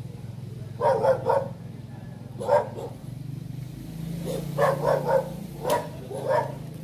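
A dog barking, about ten short barks in bunches: three about a second in, one near the middle, and a quicker run of six in the second half. A steady low hum runs underneath.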